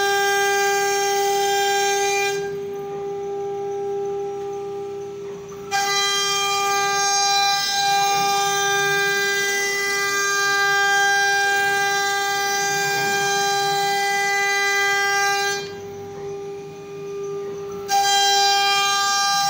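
Multi-head CNC wood router running, its spindles giving a steady high-pitched whine as they cut the wooden bedhead panel. The sound drops quieter twice for a few seconds, from about two and a half seconds in and again near the end.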